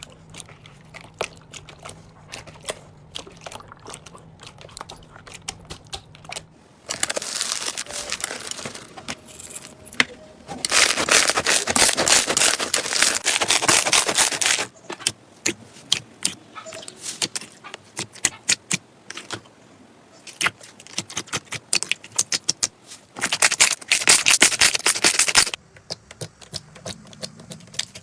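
Slime being squeezed and poked by hand: a run of sharp, sticky clicks and pops, with three louder stretches of dense crackling, about seven, eleven and twenty-three seconds in.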